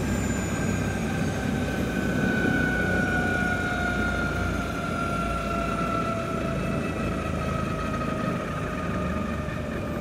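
Helicopter running, a steady noise with a high turbine whine that falls slowly in pitch throughout.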